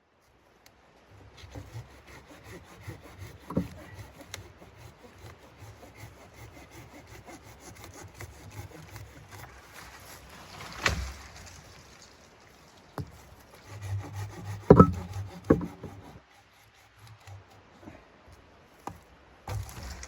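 Steady scraping and rubbing with a low rumble, broken by several sharp knocks, the loudest about halfway through and a pair around three-quarters of the way in.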